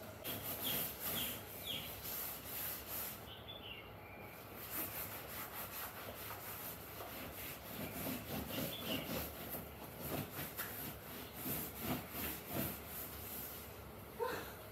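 A cloth scrubbing a sofa surface by hand, with cleaning cream: repeated rubbing strokes, about two a second at their busiest. There is a sharp knock near the end.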